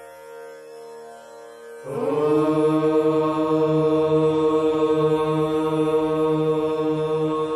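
A quiet, steady instrumental drone, then about two seconds in a loud, long-held prayer chant of voices in unison begins over it, sustained on one pitch.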